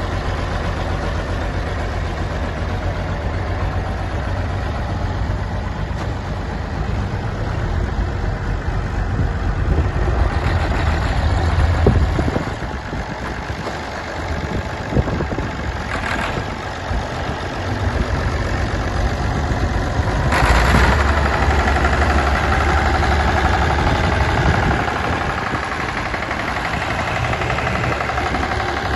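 Cockshutt 1850 tractor engine running, its sound rising and falling a few times: louder around ten seconds in, easing off at about twelve seconds, and picking up again at about twenty seconds.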